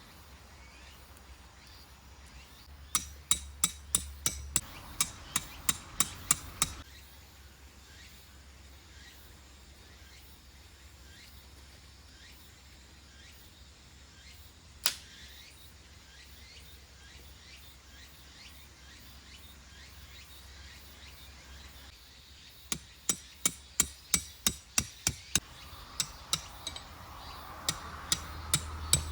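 Repeated hammer blows in two quick runs of about three strikes a second, with one lone knock in between.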